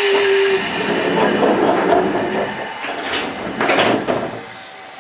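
Toyama Chiho Railway 14760-series electric train: a loud hiss of air at first, then wheel and rail noise with two sharp squeals or clanks about three and four seconds in. It quietens near the end.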